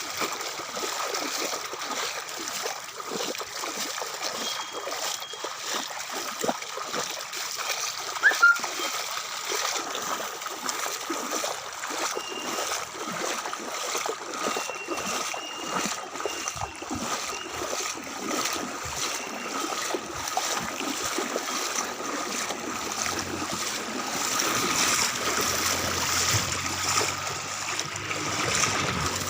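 Floodwater flowing and splashing steadily, with a brief, louder sharp sound about eight seconds in.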